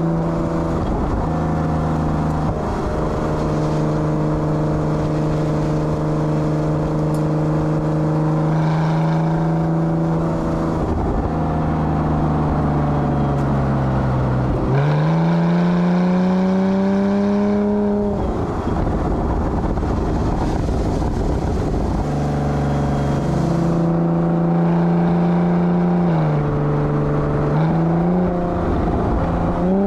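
Porsche Cayman 987.2 flat-six engine heard at the tailpipes through a Soul Performance valved cat-back exhaust with its valves open, under way on the road. The exhaust note holds steady for stretches, its pitch dropping and climbing again several times, with a sharp climb about halfway.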